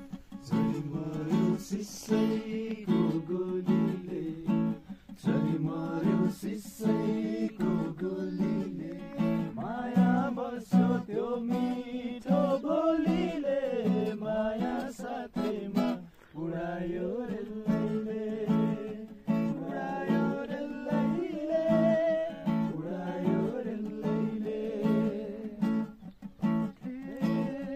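Music: a strummed acoustic guitar with a voice singing a melody over it.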